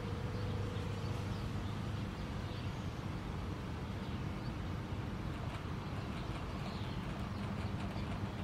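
Outdoor street-side ambience: a steady low rumble of distant traffic with faint, scattered bird chirps. A held tone fades out in the first second.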